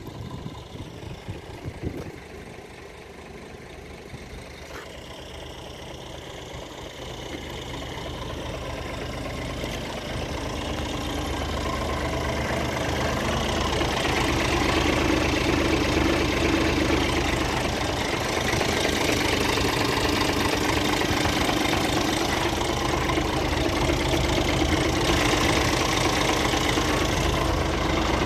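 Scania G 490 truck's diesel engine idling steadily, growing louder through the first half as the microphone moves from the back of the truck up to the cab, then holding level.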